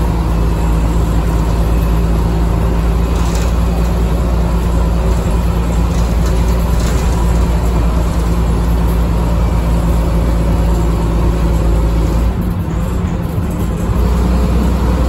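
Daimler Fleetline double-decker bus on the move, heard from inside the saloon: the rear-mounted diesel engine runs with a steady low drone. About twelve seconds in the engine note drops away briefly, then comes back.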